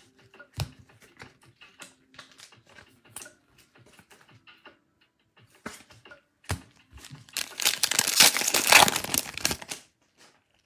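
Foil wrapper of a Select football card pack being torn open and crinkled: a few light taps, then a loud crackling rush lasting about two and a half seconds.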